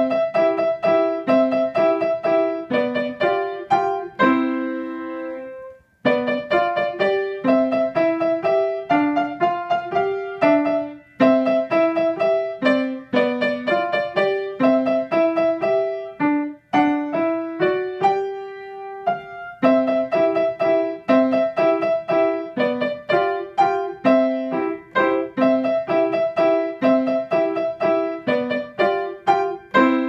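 Yamaha grand piano played in short, detached staccato notes in quick repeating figures. About five seconds in, a chord is held, followed by a brief gap, and a longer held note comes about two-thirds of the way through.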